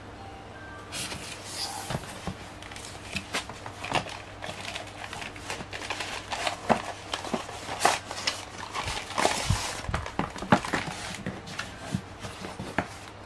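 Hands handling and opening a cardboard shipping box on a wooden desk: cardboard rustling, scraping and sliding, with many scattered taps and knocks. It starts about a second in.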